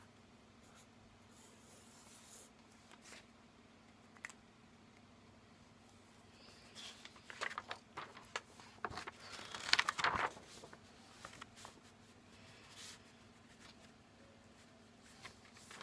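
Pen scratching faintly on paper, then sheets of paper rustling and crinkling as they are lifted and handled, loudest about seven to ten seconds in.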